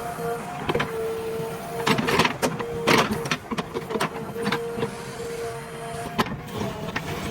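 JCB 3DX backhoe loader working, a steady whine running under repeated clanks and knocks, the loudest a little after two and three seconds in.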